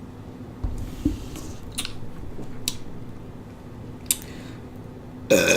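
Quiet mouth and drinking sounds with a few small sharp clicks, then a loud burp starts near the end, brought up by drinking dark soda.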